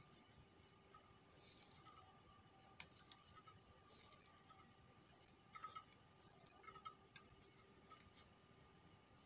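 Faint crackling hiss in short bursts, about eight times and irregularly spaced: a soldering iron melting solder and flux on a circuit board's joints.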